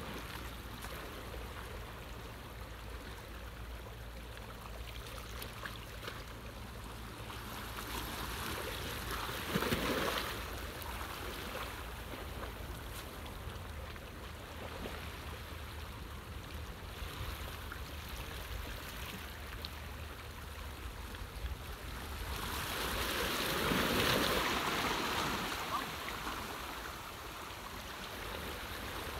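Seawater washing and splashing, with a low rumble underneath. The water swells twice: briefly about a third of the way in, and more strongly and for longer near the end.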